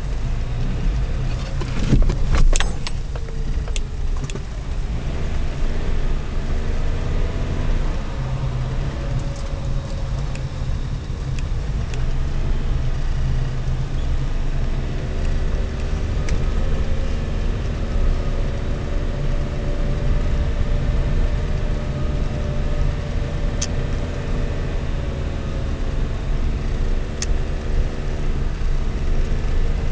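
Car engine and road noise heard from inside the cabin while driving, a steady low rumble with the engine note rising and falling gently. A burst of rattling knocks about two seconds in, and a couple of sharp clicks later.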